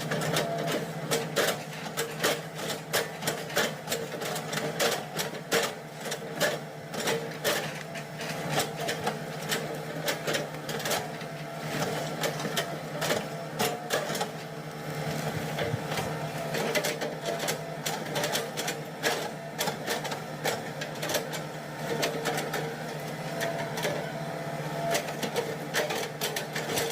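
Hydraulic excavator engine running steadily while its bucket chops felled oil palm trunks into chips. Many sharp knocks and cracks come from the bucket striking and splitting the wood.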